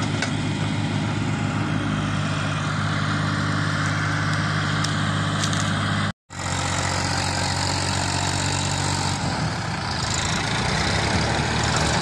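Diesel farm tractor engines running steadily, hauling a trolley loaded with sugarcane across soft field ground. The sound drops out completely for a fraction of a second about halfway through.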